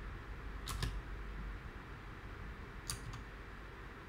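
A few single computer-keyboard keystrokes: two close together about a second in and two more near the end, over a low steady hiss.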